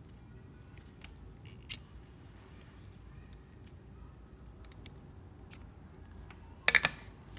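Quiet workbench room tone while a board is being soldered, with a faint click early and then a quick cluster of about three sharp clicks near the end as the hand tools are handled.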